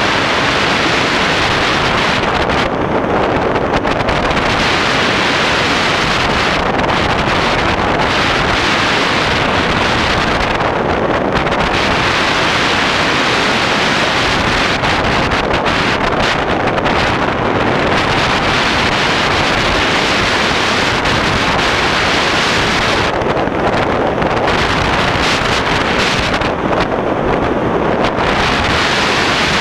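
Steady, loud rush of airflow buffeting the microphone of a camera mounted on a tandem hang glider in flight.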